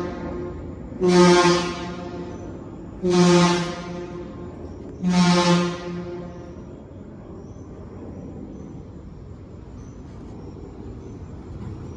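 Fire engine air horn sounded in three short blasts, about two seconds apart, then a steady engine hum.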